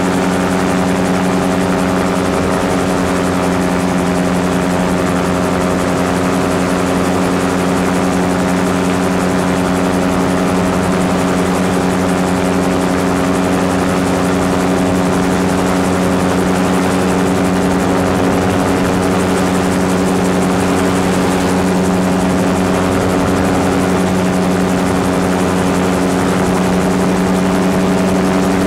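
Gyrocopter's engine and propeller running steadily in flight, a constant drone with a rush of wind over it.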